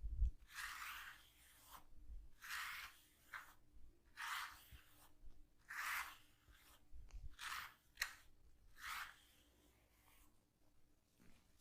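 Hands rubbing and kneading a person's scalp through the hair: a run of rustling, crunchy rubbing strokes, roughly one every second, with a soft thump at the very start and a sharp click about eight seconds in.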